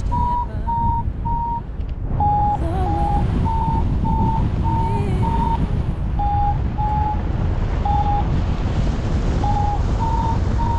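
Paragliding variometer beeping in short, quick tones that step between a lower and a higher pitch: the climb tone that signals rising air. The beeps space out a few seconds in and quicken again near the end. Wind rushes loudly on the microphone underneath.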